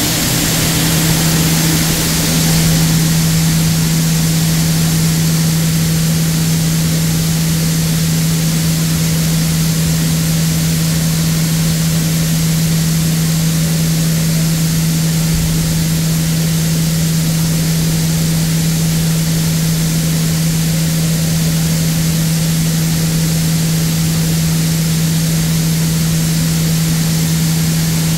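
Dal mill plant machinery running steadily: a constant low hum under an even hiss, with no change in pace.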